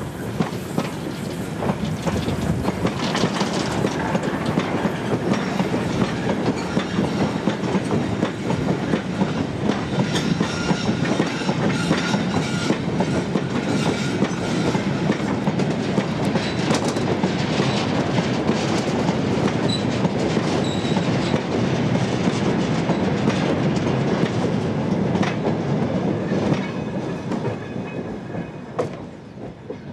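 Freight train hauled by an NER Class T2 0-8-0 steam locomotive rolling past, its goods wagons' wheels clattering over the rail joints in a dense stream of clicks. The sound drops away in the last few seconds as the train recedes.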